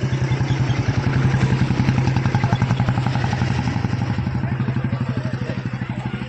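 A motorcycle engine running with a rapid, even beat. It grows louder over the first second or two and then slowly fades, as if it is passing close by.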